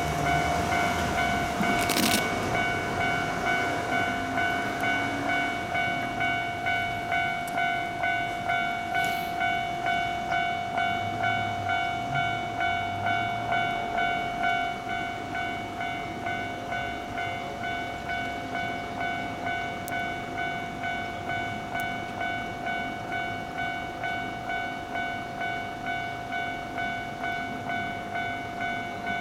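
Railway level crossing warning bell ringing in a steady rhythm of a little under two strikes a second, getting quieter about halfway through. A sharp knock sounds about two seconds in.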